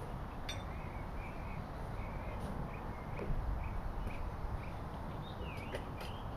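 A bird calling in a run of short, repeated notes, about two a second, over a steady low background rumble.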